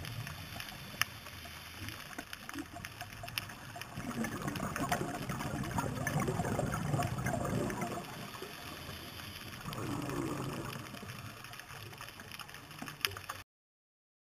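Scuba diver's exhaled bubbles gurgling from the regulator, heard through the underwater camera housing, in two long spells with a few sharp clicks; the sound cuts off suddenly near the end.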